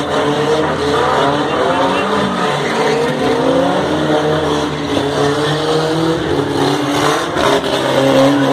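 Two pickup trucks doing burnouts and donuts: their engines are held at high revs with the pitch wavering up and down as the throttle is worked, and the rear tyres spin and squeal on the concrete, making tyre smoke.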